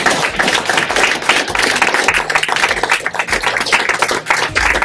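A roomful of people applauding: dense, steady clapping.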